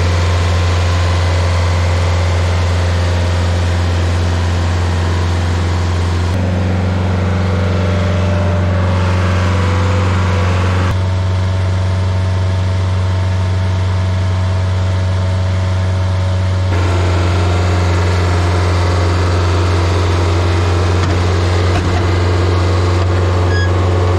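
Rayco RG50 stump grinder's engine running steadily and loudly, its tone changing abruptly three times.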